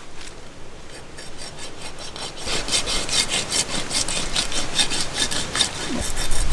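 A broad-bladed cleaver sawing back and forth through the flesh and cartilage of a large stingray's wing, in quick rasping strokes that get louder about two and a half seconds in.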